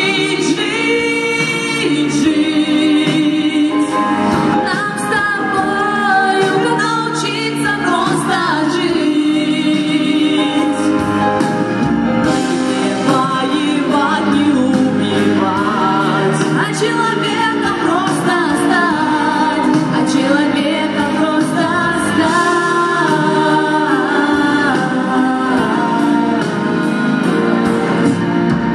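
A song performed live: women singing into microphones over amplified backing music.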